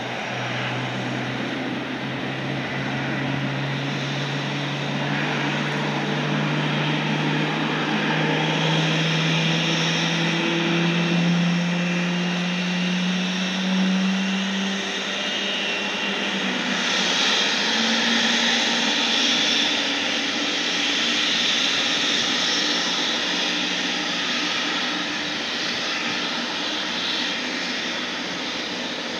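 General Electric GE90-115B turbofan of a Boeing 777-300ER spooling up, a whine that climbs slowly in pitch for about fifteen seconds over a steady jet hiss. It is typical of an engine start during pushback. A brighter, higher whine takes over about seventeen seconds in.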